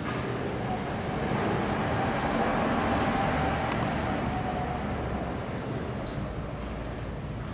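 Continuous low rumble of an aircraft overhead, swelling to a peak midway with a faint steady whine, then easing off; the uploader takes it for a strange aircraft noise.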